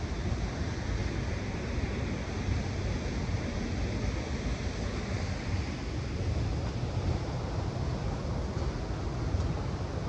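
Waterfall and river water rushing in a steady roar, heaviest in the low end.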